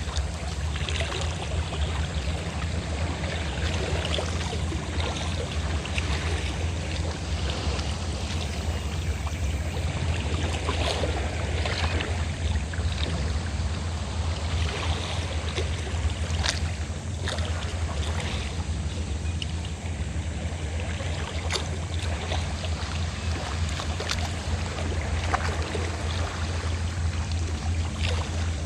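Fishing boat's engine running steadily as a low rumble, under the continuous wash of sea waves with scattered small splashes.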